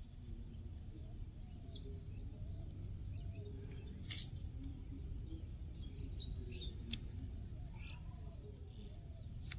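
Faint birds chirping over a steady low rumble of outdoor background noise, with a couple of brief clicks about four and seven seconds in.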